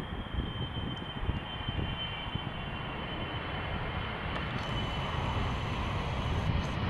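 GE90 turbofans of a KLM Boeing 777 landing: a steady jet rumble with a thin high-pitched fan whine, growing a little louder over the last few seconds.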